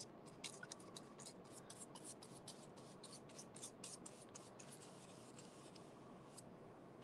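Faint paintbrush strokes on corrugated cardboard, a quick run of short soft scratches for the first four seconds or so, then only a few.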